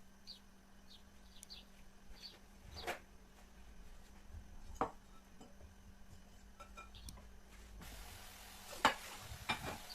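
Light, scattered clinks and knocks of kitchen dishes, glass and utensils being handled, with sharper knocks near the end. A faint steady hiss comes in shortly before the sharper knocks.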